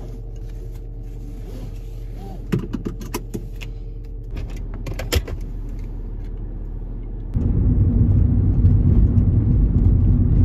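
Car engine idling, heard from inside the cabin, with a few short clicks of a seatbelt being pulled across and buckled. About seven seconds in the car moves off and the engine and road noise rise sharply.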